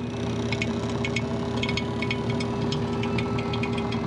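NAVAC cordless 18 V battery vacuum pump running steadily with a hum, with fast irregular light clicks over it, pulling a vacuum on a refrigeration system after a leak repair.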